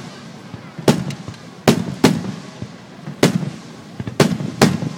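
Aerial firework shells bursting overhead: six sharp booms in about four seconds, irregularly spaced, each trailing off in a low rumble.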